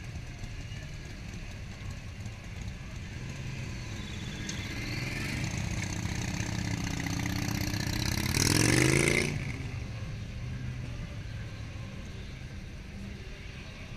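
Motorcycle engine riding past close by, getting louder over several seconds and rising in pitch as it accelerates. It is loudest about nine seconds in, then drops away suddenly, over a steady low hum of other engines running.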